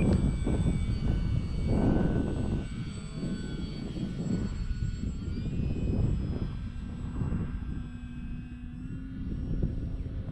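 Electric motor and propeller of an Arrows Bigfoot RC bush plane whining steadily in flight, the pitch dipping slightly about halfway through. Gusty wind buffets the microphone underneath.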